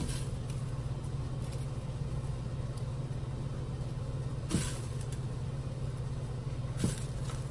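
Steady low hum, with two light knocks about four and a half and seven seconds in as garlic cloves are handled in a pot of loose skins.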